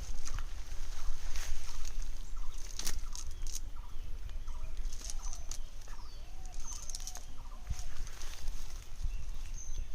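Birds calling: many short, repeated calls over a steady low rumble, with scattered sharp clicks.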